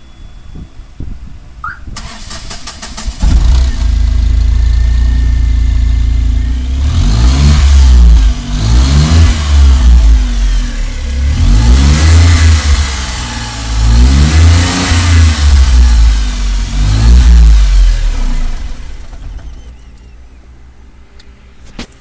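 Ashok Leyland Dost CNG light truck engine cranked briefly by the starter, catching about three seconds in and idling, then revved repeatedly with the pitch rising and falling in several blips. It winds down about nineteen seconds in, leaving a low steady hum.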